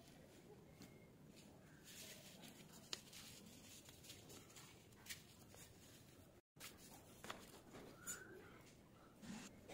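Near silence: faint room tone with a few scattered soft clicks and rustles, and the sound cutting out briefly about six and a half seconds in.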